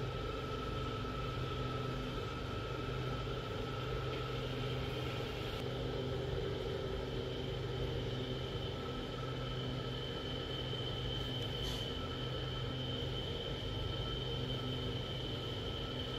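Steady low hum and hiss with a few faint constant whining tones; a higher whine comes in about six seconds in.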